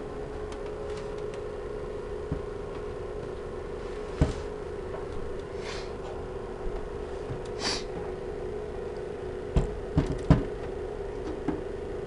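Computer cables being plugged back in by hand: a few scattered knocks and clicks, three close together near the end, and two short brushing rustles, over a steady low hum.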